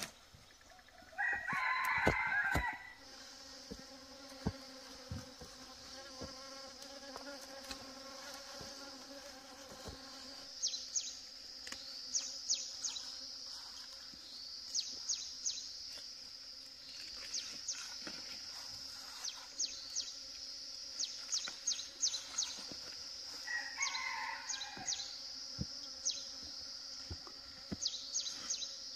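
Rooster crowing twice, once about a second in and again near the end, each crow lasting about a second and a half. Under it runs a steady high insect drone, with many short high chirps from the middle on.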